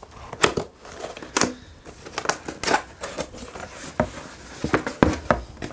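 Cardboard box being opened by hand: flaps pulled up and folded back, with scattered taps, scrapes and rustles of cardboard.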